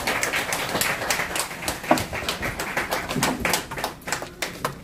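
A room of people applauding with quick, irregular handclaps that thin out near the end.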